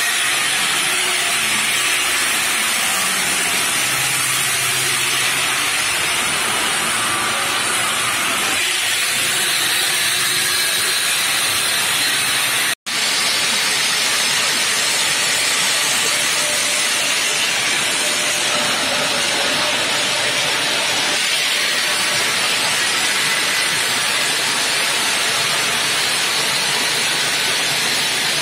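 A bridge saw's large diamond blade cutting through a granite slab, a loud, steady hiss. About halfway through, the sound cuts out for an instant and then resumes.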